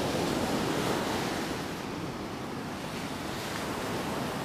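Ocean surf breaking and washing up the sand in a steady rush, swelling slightly in the first second, with wind rumbling on the microphone.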